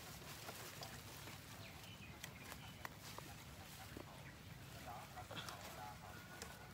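Faint, irregular taps and clicks from a fish trap being handled with live fish inside it.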